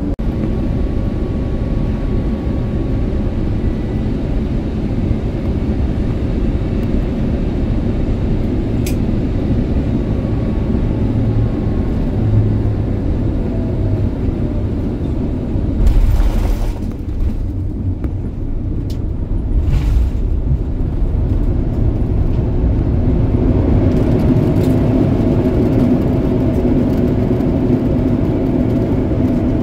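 Airliner cabin noise on the approach: a steady low rumble of engines and airflow. About halfway through there is a brief burst of noise, and near the end steady engine tones come up over the rumble.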